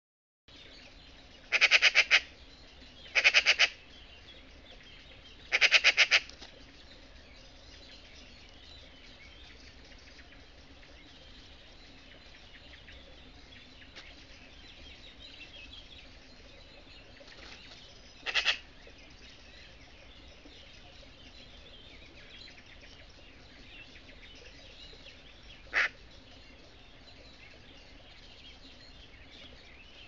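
Eurasian magpie chattering: three loud harsh rattling bursts in the first few seconds and one shorter burst near the middle. Faint small birds chirp in the background, and there is one short sharp call later.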